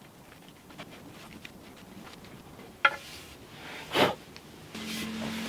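Knife carving into a wooden staff: a few faint, short scraping cuts, with a sharper cut about four seconds in. A faint steady low hum comes in near the end.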